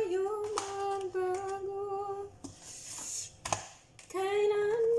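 A woman humming a slow tune to herself in long held notes. She breaks off about two and a half seconds in and takes it up again near the end. A sharp click falls in the gap.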